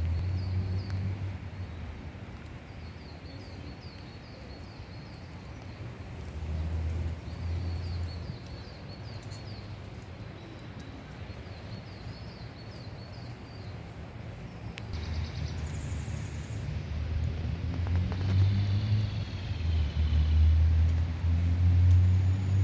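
A small songbird singing short, repeated high chirping phrases over a steady hiss of rain. Low rumbling surges come and go and grow louder toward the end.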